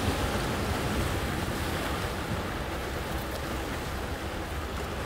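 Sea surf washing over a rocky shoreline, a steady rushing noise, with wind rumbling on the microphone.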